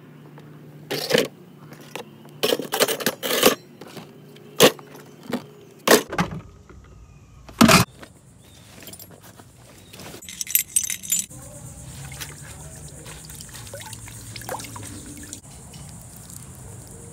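Small metal plumbing parts and tools clinking and clattering as they are handled and rummaged through, a string of sharp clacks. From about ten seconds in a steady high hiss comes in under a few lighter clicks.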